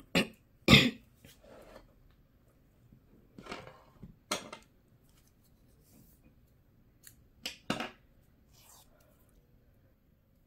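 A handful of short, sharp clicks and rustles of crochet tools and yarn being handled and set down on a tabletop, including a pair of small scissors; the loudest comes less than a second in, with others around four and eight seconds in.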